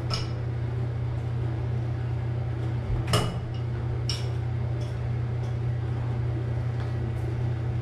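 A few sharp metallic clinks of an adjustable wrench being shifted and repositioned on a shower head fitting, the loudest about three seconds in, over a steady low hum.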